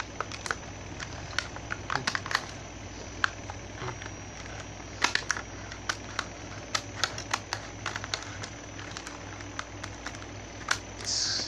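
Scissors cutting through the stiff plastic blister of a Hot Wheels card, making irregular sharp clicks and snaps of plastic and cardboard, with a brief rustle near the end.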